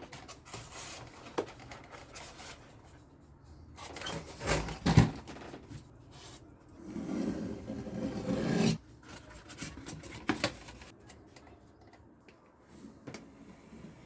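Irregular rubbing and scraping of hand work on a small object, with a sharp knock about five seconds in and a longer, louder scrape near the middle.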